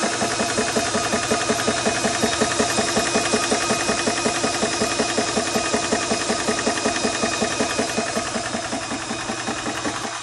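SPRITECH portable PCP air compressor running under load while filling an air rifle toward 250 bar: its piston pumps in a fast, even beat of several strokes a second over a steady hum.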